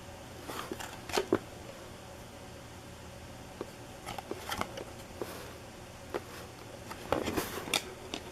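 Trading cards being handled and flipped through: short slides and clicks of card stock in scattered clusters over a steady low hum.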